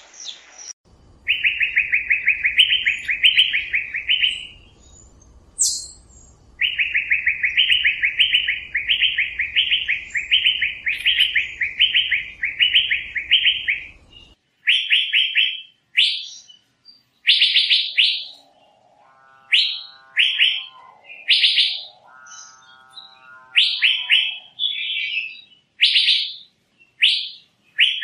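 Asian fairy-bluebird calling: two long runs of rising whistled notes, about two a second, then single slurred whistles about once a second. Two lower, buzzy calls sit among the later whistles.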